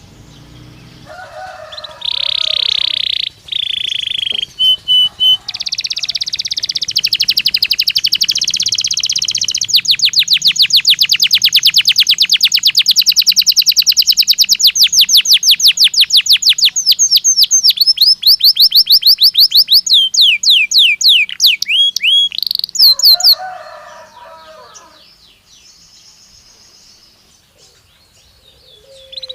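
Belgian canary singing: a buzzy held note, then a long, very fast rolling trill of rapid repeated notes lasting about ten seconds, then quick sweeping notes, followed by a few seconds of near pause before the song starts again at the end.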